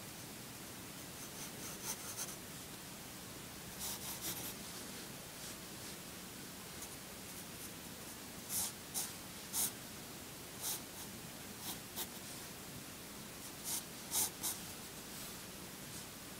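Pencil scratching across paper in short, light sketching strokes, coming in small clusters with pauses between, the loudest in the second half, over a steady faint hiss.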